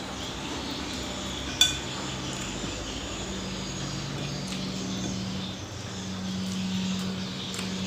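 Tableware during a meal: one sharp ringing clink of a plate or utensil about one and a half seconds in, with a few faint clicks, over a steady low hum.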